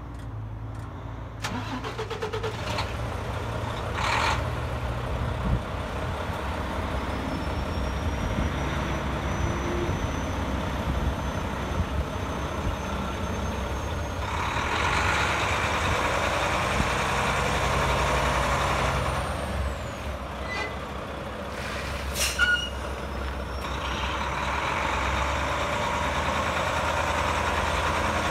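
A 2011 Mack CXN truck tractor's diesel engine running. It twice grows louder and rougher for several seconds, and a faint high whine climbs slowly and then falls away as the first loud stretch ends. A couple of short sharp clicks or hisses are heard.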